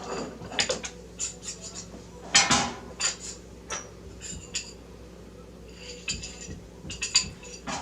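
Metal frame rails and brackets clinking and clattering as they are picked up and laid together, a string of irregular clanks with the loudest knock about two and a half seconds in.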